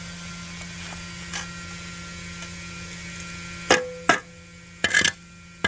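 Steady hum of the vacuum truck's pump running, with three sharp strikes starting a little past the halfway point, the first two close together.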